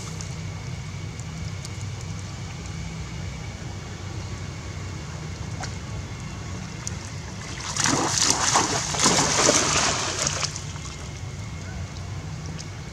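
Macaques splashing through shallow muddy floodwater, a loud burst of splashing lasting about three seconds that starts near the middle, over a steady low rumble.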